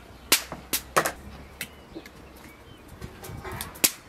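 Sharp clicks and knocks, about five in all, from handling a small woven spice pot and its lid over raw meat on a wooden cutting board. The loudest comes near the end, after a brief light scratching.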